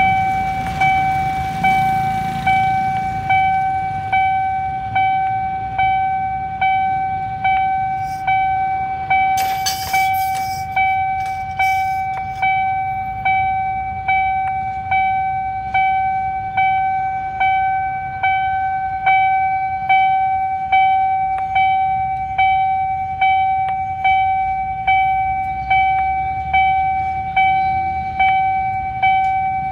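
Railway level-crossing warning bell ringing on and on, an even ding-ding-ding of a bit more than one strike a second, each stroke ringing on into the next, sounding while the crossing barriers are down. A brief noisy rush passes about ten seconds in.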